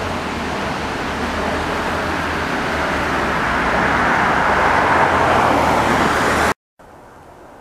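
Jet airliner on landing approach passing low overhead, its engine roar building steadily for several seconds, then cut off abruptly near the end, leaving quieter background noise.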